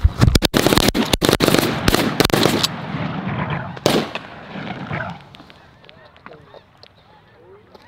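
A rapid volley of shotgun blasts at geese flying over the decoys in the first couple of seconds, with one more shot near four seconds. Geese honk throughout, carrying on more faintly once the shooting stops.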